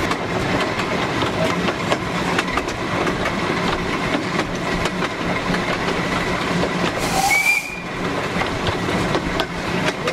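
Narrow-gauge steam locomotive running, with the steady clatter and clicking of its wheels over the rail joints. It gives one short whistle blast about seven seconds in.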